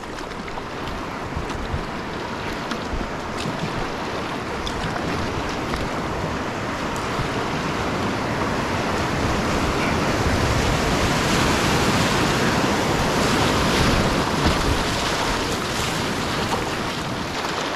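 Whitewater rapids rushing steadily, growing louder through the middle and easing off near the end.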